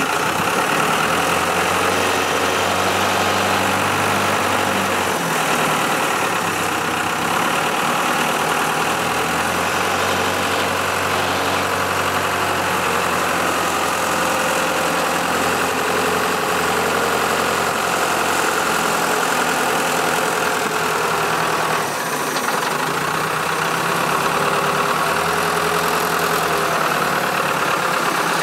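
Diesel engine of a mobile crane running steadily as it hoists and positions a ship's rudder, its note shifting about five seconds in and again a little after twenty seconds.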